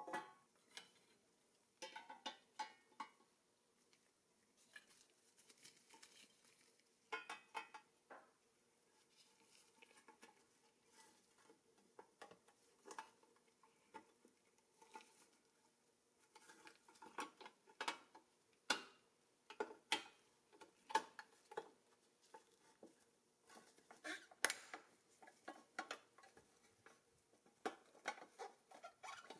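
Scattered small clicks, taps and rustles of gloved hands handling parts: a clear plastic windshield being worked into a pressed-steel toy truck cab. The taps grow more frequent in the second half.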